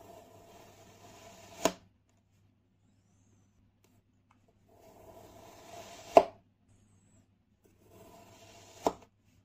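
A blade slicing through kinetic sand three times. Each slice is a crunchy scraping lasting a second or two and ends in a sharp tap as the blade meets the surface beneath; the middle tap is the loudest.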